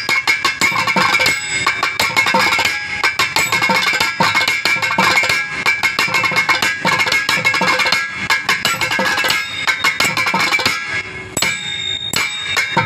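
Carnatic thani avartanam percussion solo: rapid, dense hand-drum strokes with ringing pitched tones, thinning briefly about eleven seconds in.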